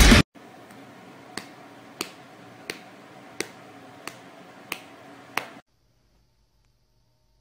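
Heavy metal music cuts off just at the start. Then seven sharp clicks, evenly spaced about two thirds of a second apart, over a faint hiss.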